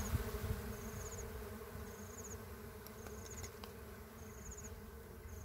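A cluster of dwarf honeybees buzzing around their small exposed comb, a steady hum. A high chirping trill repeats about every second and a quarter, with a few light clicks around three seconds in.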